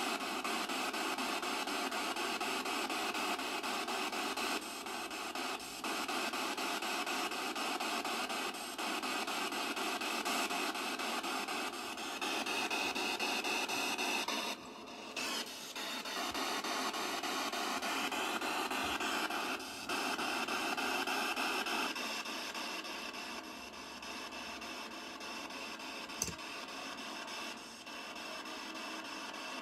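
A PSB7 spirit box sweeping through FM radio static, played through an Ocean Verb digital reverb pedal and a small amplifier. The hiss is steady, broken by a few brief dips as the sweep jumps between frequencies, with faint snatches of tone around the middle.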